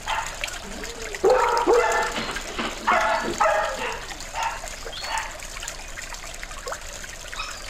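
Dogs barking in short bouts, two louder clusters in the first half and fainter yaps later, over the steady trickle of a small pond fountain.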